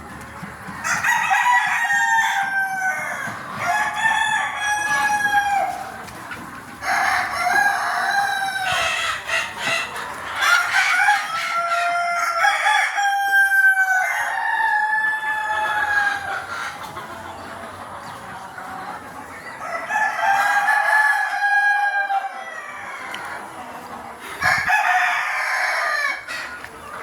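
Desi chicken roosters crowing again and again, several calls overlapping, with hens clucking. There is a quieter lull in the middle before more crows near the end.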